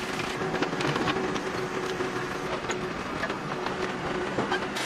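Steady machinery hum under scattered metallic clinks and knocks from work on a truck being dismantled.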